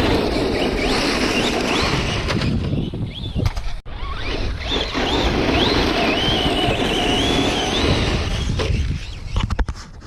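Electric motor of a Traxxas Slash RC truck whining, its pitch rising and falling with the throttle, over the rough rush of tyres on dirt and gravel. The sound breaks off briefly about four seconds in, and there are a few sharp clicks near the end.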